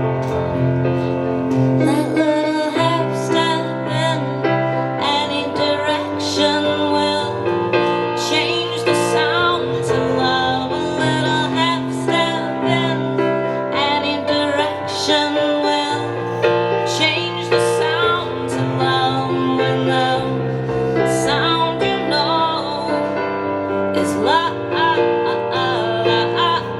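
Live song: a keyboard plays sustained chords while a woman sings a wavering melodic line over it.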